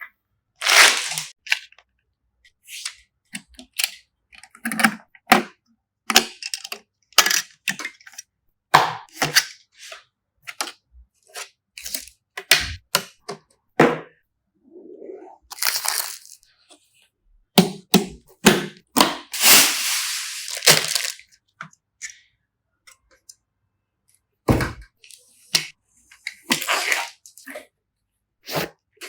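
Irregular run of sharp clicks, snaps and knocks from computer parts being handled and fitted together during a PC build, with a longer rustling noise about twenty seconds in.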